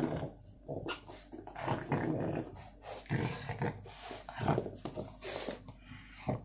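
Pug dog making short, irregular vocal noises in quick bursts while it keeps hold of its toy.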